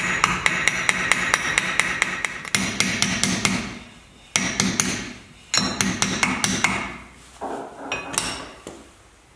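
Rapid light hammer blows on a Porsche 911's front wheel hub, about four a second, each with a short metallic ring. They come in one long run and then two shorter runs with pauses between. Softer knocks and handling of the hub follow near the end.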